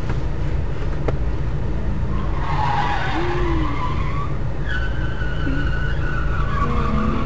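Steady low rumble of a car's cabin heard through a dashcam, with tyres screeching from a skidding vehicle starting about two and a half seconds in, followed by a thinner high squeal.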